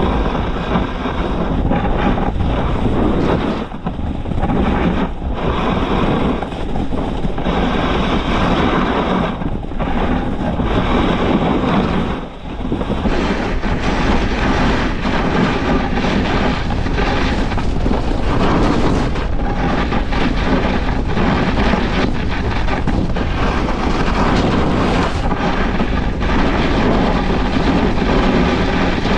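Snowboard sliding and carving over snow, a continuous rough scraping hiss picked up close to the board, mixed with wind buffeting the microphone. It drops briefly a few times as the board turns.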